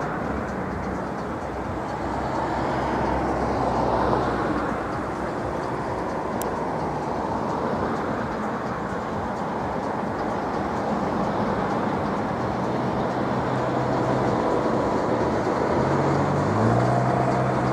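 Izhora Works heavy-industry plant humming like a beehive: a dense, steady drone from the works, with a few low tones that shift in pitch now and then, more of them near the end.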